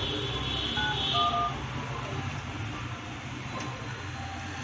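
A few short two-note keypad beeps from a phone's dial pad, about a second in, over a steady low hum.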